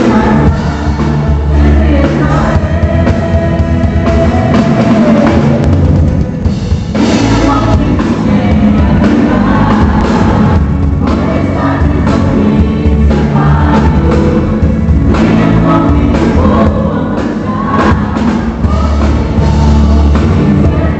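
Live worship band music with singing over bass and drums.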